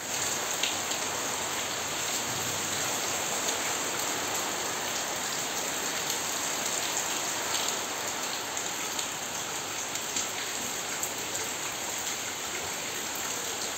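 Steady rain falling on a wet paved courtyard: an even hiss with scattered sharper drop ticks.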